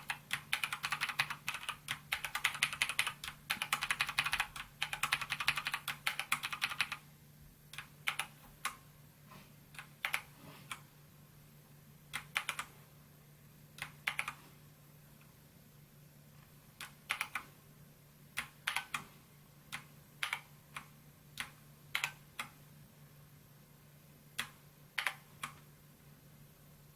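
Typing on a SKYDIGITAL NKEY-R3 mechanical keyboard with PBT keycaps: fast continuous clacking for about the first seven seconds, then single keystrokes and short runs of a few keys spaced apart. A steady low electrical hum sits underneath.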